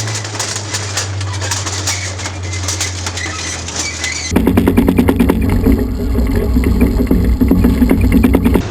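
Tiger II tank's Maybach V12 petrol engine running with a steady low hum and a fast rattle of clicks, then about four seconds in an abrupt cut to a louder, closer recording of the tank with heavier engine sound and dense clanking.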